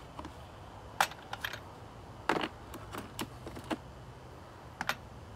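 Scattered sharp metal clicks and clacks from hand tools and wheel hardware being handled while a car's front wheel is refitted, about half a dozen at irregular intervals.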